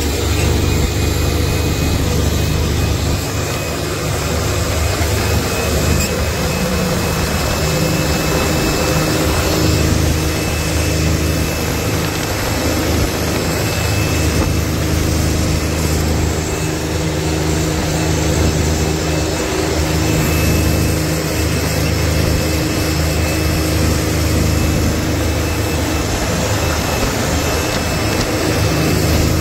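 John Deere tractor's diesel engine running steadily as the tractor drives along a road, heard from the driver's seat over a steady rush of wind.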